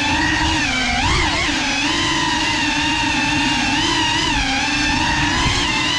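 Whine of a GEPRC Cinelog 35 cinewhoop's ducted propellers and motors in flight, its pitch rising and falling with the throttle, with a quick wobble about a second in, over a low rumble of prop wash and vibration.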